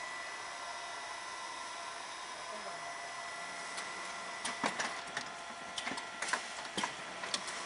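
Automatic pancake-sandwiching line running: a steady mechanical whir and hiss with a constant whine. From about four seconds in, a handful of sharp clicks and clacks come from the filling depositor and the gripper that lays the top pancake on.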